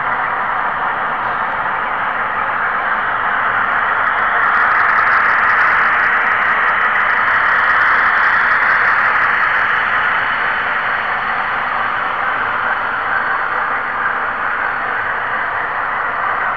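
Steady rushing hiss of an N-scale model railroad camera car rolling along the track, picked up by its small onboard camera. It swells a little partway through, with faint rapid ticking over those few seconds.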